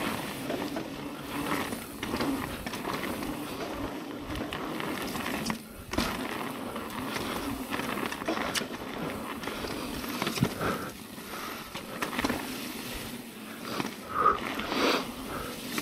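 Mountain bike rolling fast along a dirt trail: steady tyre noise with knocks and rattles from the bike over bumps, and a short lull about six seconds in.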